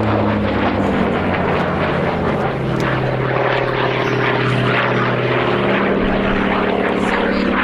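Hawker Fury FB.II's Bristol Centaurus 18-cylinder sleeve-valve radial engine running at display power as the fighter flies past. It is a loud, steady drone, and its pitch drops about halfway through.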